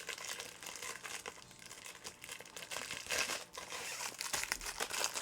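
Packaging crinkling and rustling as items are handled and rummaged through, a run of irregular crackles that grows busier about three seconds in.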